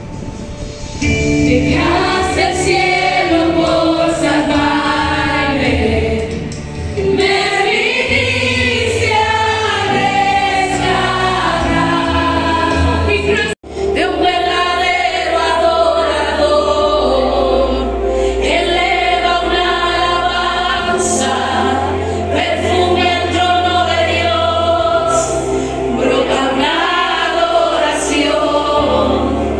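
Live church worship music: a group of singers performing a worship song over sustained low accompaniment. The sound cuts out for an instant about halfway through.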